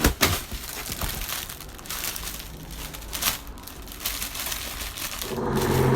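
Packaging crinkling and rustling as it is handled, in short irregular bursts. A steady low hum with an engine-like drone starts near the end.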